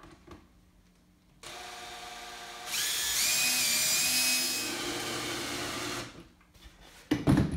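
Cordless drill driving a screw at an angle through the bottom of a wooden wall stud to toenail it down: the motor starts about a second and a half in, gets louder as the screw bites into the wood, and stops about six seconds in. A couple of sharp knocks follow near the end.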